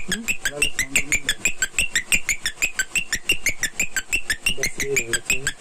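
A small 12 V 'Tuk Tuk' reverse parking siren sounding its alarm: a rapid, even train of short, high electronic chirps, about six a second. It is the warning that a vehicle is reversing.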